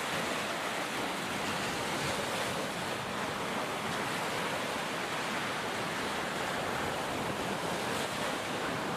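Recorded ocean surf: a steady wash of waves breaking on a beach, the original audio of the ocean video clip being played back.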